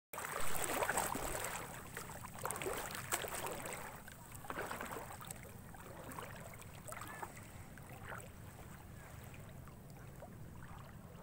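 Shallow sea water lapping and splashing against a rocky shore, in irregular short splashes that are loudest about half a second in, over a low rumble of wind on the microphone.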